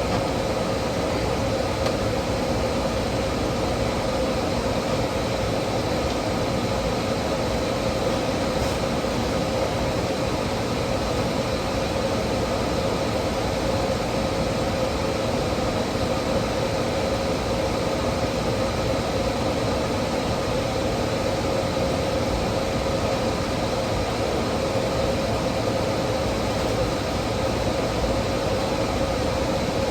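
A steady mechanical hum with a few unchanging tones in it over an even hiss.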